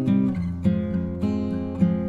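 Background music: strummed acoustic guitar changing chords every half second or so.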